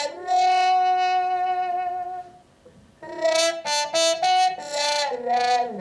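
A wind instrument with a brassy, saxophone-like tone playing a slow melody: one long held note, a short pause, then a run of short notes stepping in pitch.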